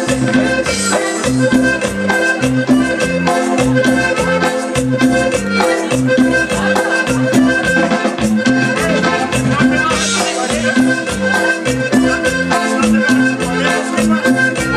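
Accordion-led Mexican-style Latin dance music with a steady beat, played loud over a DJ's sound system.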